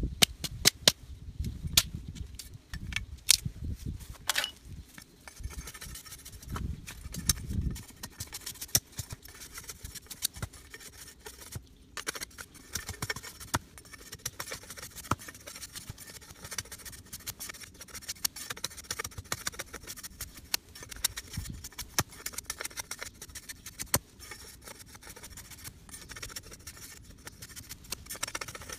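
A cleaver blade shaving and scraping a thin bamboo strip: a long run of quick, light scrapes and clicks. A few sharp clicks and handling knocks come in the first seconds.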